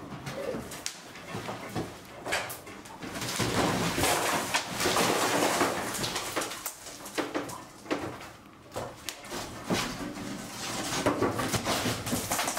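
Wooden wall panelling being pried loose with a crowbar and moved by hand: repeated scraping and knocking, with short squeaky creaks from the boards.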